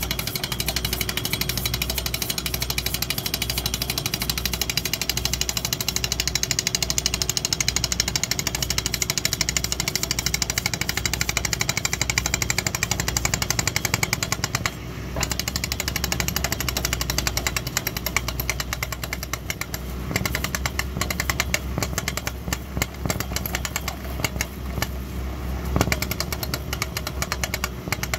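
Excavator-mounted driving rig hammering a steel rod into rocky ground, a rapid steady percussive hammering over the excavator's engine. It pauses briefly about halfway through, then comes back uneven and stuttering.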